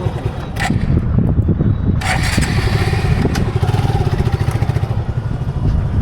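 Motor vehicle engine running with a steady low rumble. A hissing rush joins it about two seconds in.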